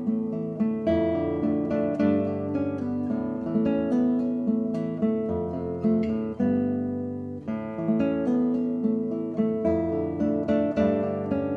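Background music: acoustic guitar playing picked notes and chords.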